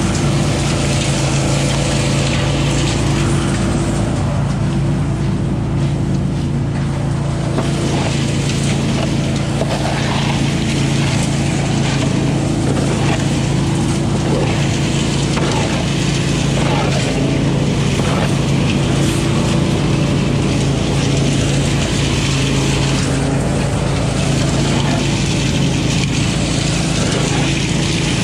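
20 hp Billy Goat truck-loader leaf vacuum running steadily, its engine hum under the rush of air drawn into the intake hose. Short rattles and clatters come through as dry leaves are sucked up the nozzle.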